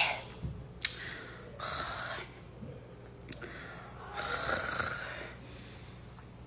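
A woman breathing heavily: two long, noisy, rasping breaths a couple of seconds apart. She is winded and short of breath after running, with asthma.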